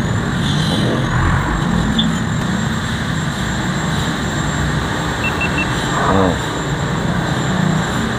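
Steady background rumble of road traffic, with a light click about two seconds in and then three quick high beeps as a GoPro action camera powers on.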